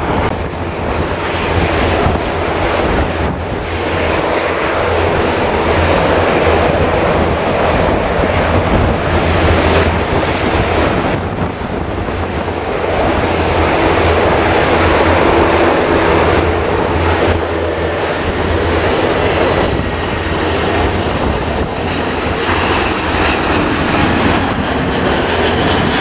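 Jet engines of an Airbus A320-family airliner on final approach, a loud, steady rushing engine noise as it descends low toward the runway, with a faint high whine joining it in the second half.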